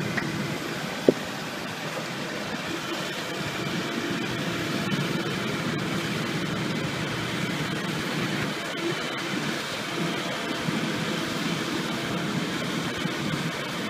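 Tracked excavator's diesel engine running steadily while it works the bucket over loose soil, with a single short sharp knock about a second in.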